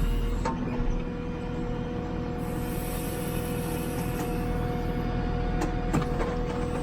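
JCB 3CX backhoe loader's diesel engine running steadily under hydraulic load, with a steady whine over the engine rumble. A few sharp knocks or clicks come through, about half a second in and twice near six seconds in.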